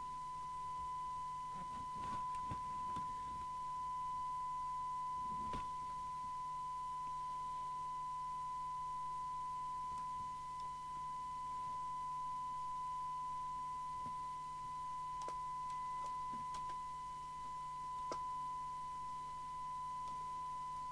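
Steady one-kilohertz test tone from the Amstrad CB901 CB radio's speaker, the receiver demodulating a signal generator's modulated test carrier during S-meter alignment, with a few faint clicks.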